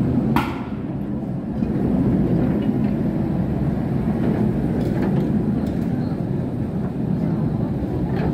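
Trams rolling past close by on street track: a steady low rumble of wheels on rails, with a sharp metallic click about half a second in and a few fainter clicks later.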